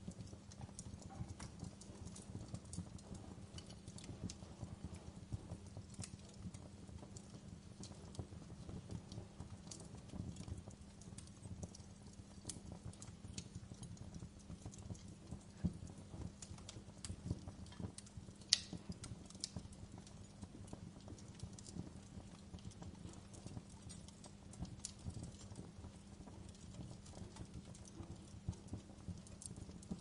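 Wood logs burning in an open fireplace, crackling with irregular small pops, and one sharper pop a little past the middle.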